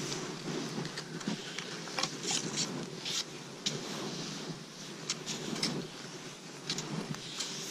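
Cross-country skis swishing and crunching through deep fresh snow, with irregular sharp clicks and taps throughout.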